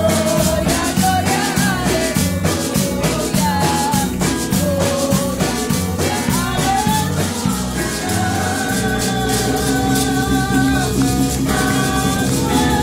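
Live Pentecostal worship music: a woman singing a melody into a microphone over electric bass guitar and a steady percussion beat.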